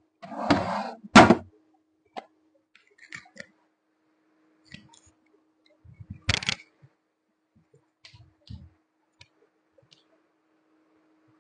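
Knocks and thuds of dumbbells being handled: a rustle and one loud sharp knock about a second in, small clicks, then a cluster of thuds about six seconds in as a pair of plastic-plate dumbbells is set down on a yoga mat. A faint steady hum runs beneath.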